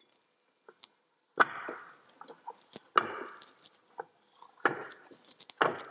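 Snowmobile drive belt being worked by hand up into the sheaves of a TEAM secondary clutch: four dull knocks roughly a second and a half apart, each followed by a short rubbing scrape.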